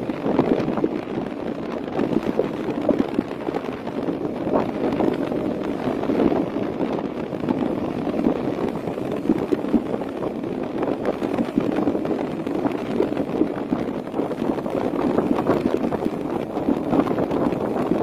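Wind rushing and buffeting on the microphone of a camera carried by a moving rider, a loud, ragged rush that never settles.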